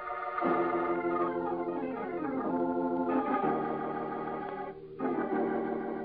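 Dramatic organ music playing as a radio-drama stinger: held chords that shift every second or so, some sliding down in pitch, with a brief break about five seconds in before a new chord.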